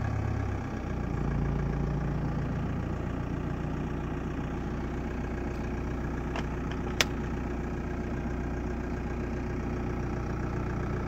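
Volkswagen Passat B4's 1Z 1.9 TDI four-cylinder turbodiesel idling, heard from inside the cabin. The engine note shifts in the first second, then holds steady. A single sharp click comes about seven seconds in.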